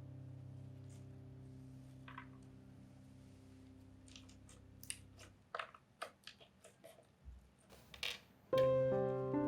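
A lingering piano note fades away, then a run of short, sharp clicks and crackles, like slime being squeezed and worked by hand. Piano music starts again near the end.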